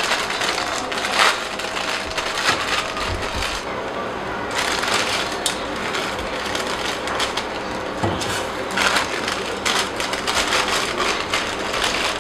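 Plastic instant-noodle packets crinkling and tearing as they are handled and ripped open by hand, a busy irregular crackle that eases briefly around four seconds in.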